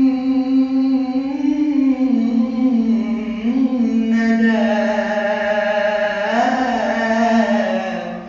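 A singer's voice drawing out long, ornamented notes of an Arabic devotional song, the words "min nada" ("of dew") stretched over several seconds, the pitch sliding and wavering around each held note. The phrase fades near the end.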